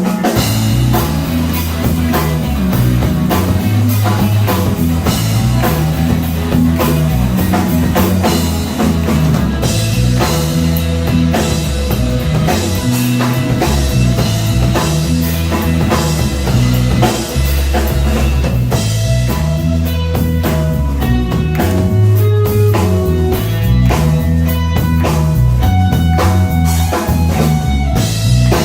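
Rock band playing an instrumental passage: guitar over a bass line and a busy drum kit, with no singing.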